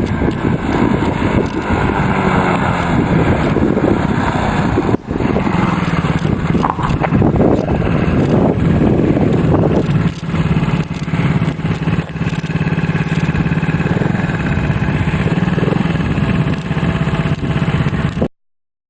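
Engine of a 90cc quad ATV running, its pitch rising and falling as it is revved. The sound breaks off briefly about five seconds in and cuts off suddenly near the end.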